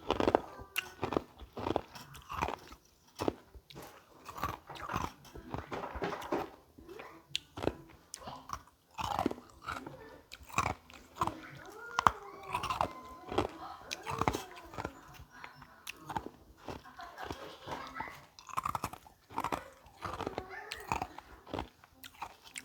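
Carbonated ice being bitten and chewed, a steady run of irregular sharp crunches.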